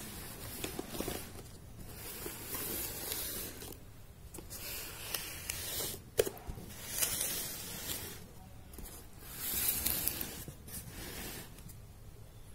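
Paper rustling and rubbing in several spells of a second or two as red paper is handled, smoothed and folded over a cardboard box, with a sharp tap about six seconds in.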